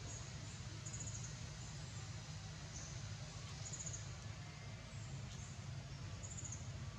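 Outdoor ambience: short, high-pitched pulsed insect chirps repeat every second or two over a steady low hum and hiss.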